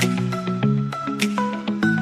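Background music: a pitched melodic track with a steady beat and short regular percussion ticks.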